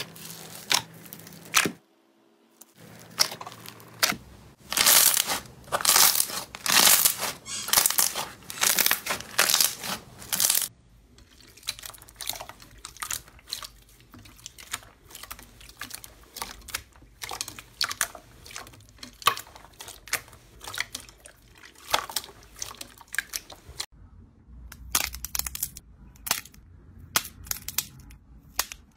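Slime being pressed, stretched and squeezed by hand: a dense run of loud crackles and pops in the first part, then finer, quieter sticky clicks and pops.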